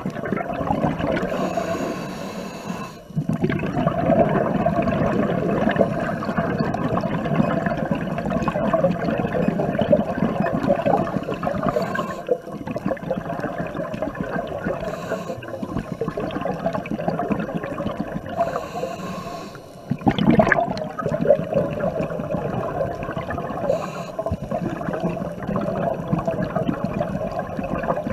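Scuba diver breathing through a regulator underwater: exhaled air bubbling and gurgling out of the exhaust, with short hissing inhalations every few seconds. A brief louder burst about twenty seconds in.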